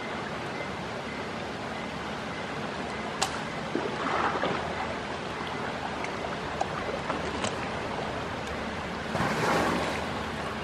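River water washing steadily, with two louder bouts of splashing, about four seconds in and near the end, as an Asian elephant swims and surfaces. A few sharp clicks in between.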